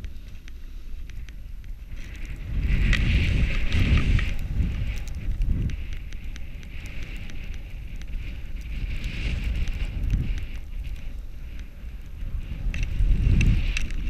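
Wind rumbling on the GoPro's microphone over the hiss and scrape of a snowboard sliding across snow. The rumble swells loudly twice, about three seconds in and again near the end.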